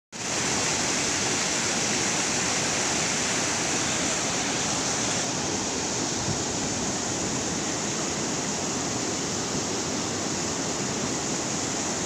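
White water pouring over a low concrete weir and churning below it, a steady loud rush with no break.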